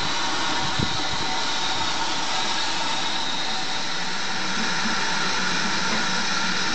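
A GWR steam tank engine standing with steam escaping, a steady loud hiss that does not let up. A brief low thump comes about a second in.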